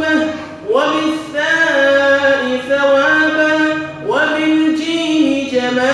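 A man chanting an Arabic supplication (dua) in long, held melodic phrases.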